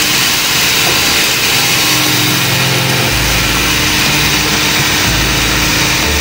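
Steady running noise of an automatic wood drilling and screw-inserting machine's motors, mixed with a background music track whose low bass notes change every second or so.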